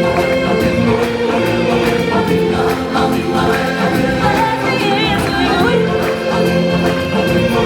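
Music: a choir singing over a full instrumental accompaniment.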